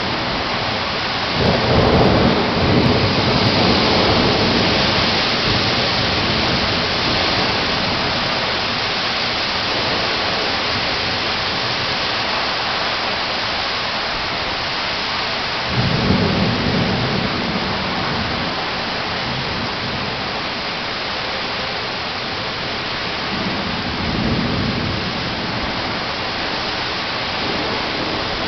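Thunderstorm: steady rain falling, with low rolls of thunder about two seconds in, around sixteen seconds and again near twenty-four seconds.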